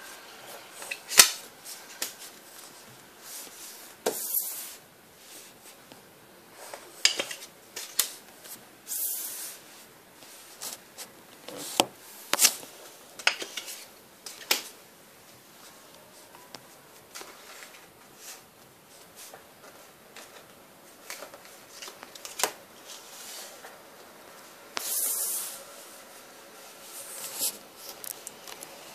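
Trading cards being handled on a wooden table: irregular clicks and taps, with a few short rubbing swishes as cards are slid and moved.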